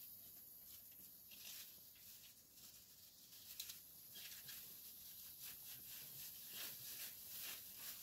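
Faint, irregular crisp rustling and tearing of fresh grass as a Dorper ewe pulls mouthfuls from a hanging net feeder, busier in the second half.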